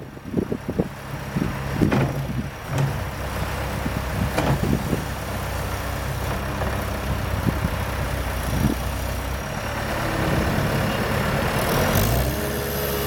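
Cat 246C skid steer's diesel engine running steadily, with a few knocks in the first few seconds. The engine note changes near the end.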